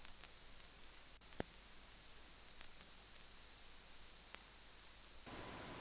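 Steady high-pitched chirping of insects, a night-time ambience bed, with a couple of faint clicks a little over a second in.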